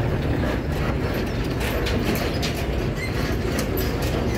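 Heavy cargo truck driving slowly past close by on dirt ground: a steady low diesel engine rumble with many rattles and clicks from the loose body and tyres.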